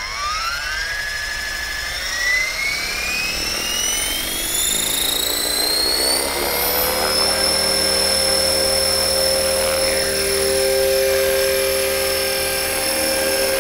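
Blade 330S electric RC helicopter spooling up its motor and rotors: a whine that rises in pitch for about seven seconds, then holds steady as the helicopter lifts off the pad near the end.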